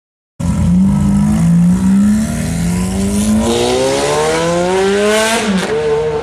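Ferrari F430's V8 with a straight-pipe exhaust accelerating hard, its revs climbing, dipping briefly after about two seconds as it changes gear, climbing again, then falling sharply near the end on the next shift. The sound cuts in abruptly about half a second in.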